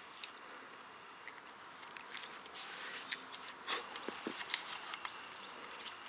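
Faint, steady insect chirring and buzzing, with scattered light rustles and clicks.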